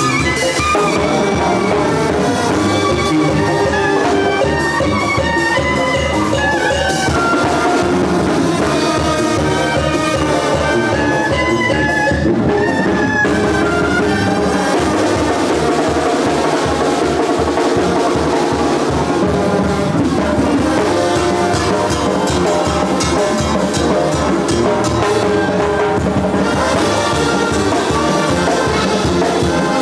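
Latin American brass-band music playing continuously: trumpets and trombones over steady drumming.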